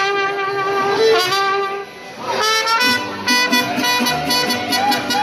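Mariachi band playing live: trumpet and violin carry long held melody notes, break off briefly near two seconds in with a quick upward run, and a low rhythmic bass-and-guitar accompaniment comes in under them about three seconds in.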